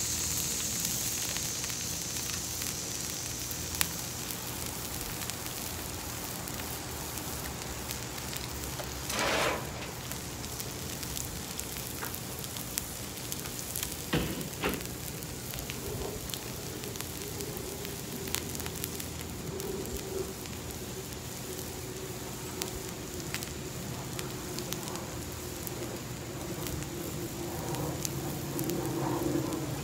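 Leftover scraps of steak and onion sizzling and crackling steadily on a hot flat-top griddle, with a short noisy swell about nine seconds in and a single knock a few seconds later.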